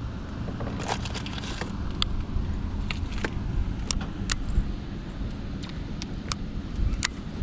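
Steady low rumble with irregular sharp clicks and light metallic rattles of fishing tackle in an aluminium john boat, about one or two a second.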